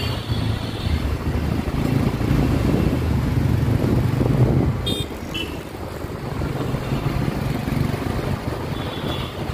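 Motorcycle running at riding speed through street traffic, a steady low engine hum over road noise. A short horn toot sounds about five seconds in.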